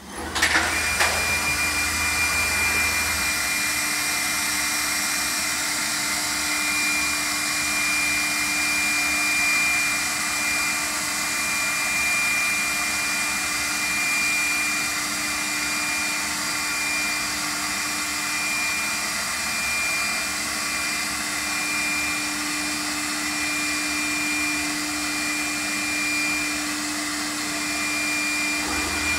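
Woodworking CNC machining centre's router spindle starting up about a second in, with a quick rising whine, then running steadily: a constant high whine over a rushing hiss.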